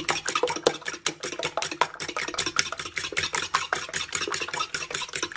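Fork whisking eggs and milk in a bowl: quick, regular clicks of the fork against the bowl, about six strokes a second.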